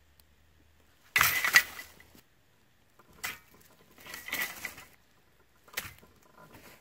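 A folding bow saw's metal frame and blade handled and set down on dry leaf litter. There are two clattering bursts with a metallic ring, a little over a second in and again around four seconds, and a single sharp click near the end.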